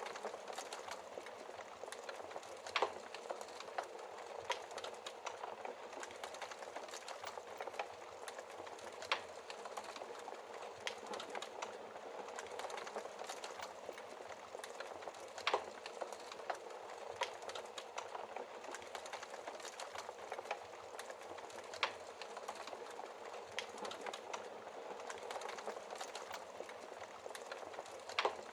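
Wood fire burning in a fireplace: a steady dense crackle with occasional louder sharp pops.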